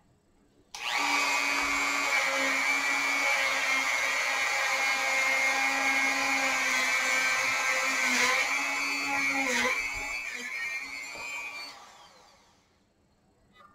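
Dremel 4300 rotary tool switched on about a second in and running with a steady high whine against the wood carving, its pitch dipping briefly twice as it is pressed in, then switched off and winding down near the end.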